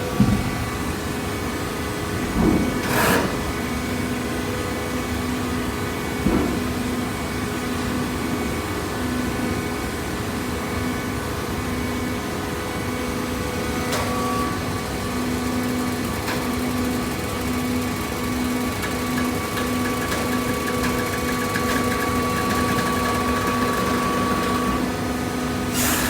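Hydraulic baler's motor and pump running with a steady hum, with a few knocks in the first several seconds and a thin higher whine joining in around the middle.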